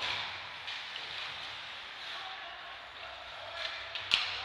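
Ice hockey game sound in the rink: a steady hiss of skates on ice and arena noise, with a few faint knocks and one sharp crack from the play about four seconds in.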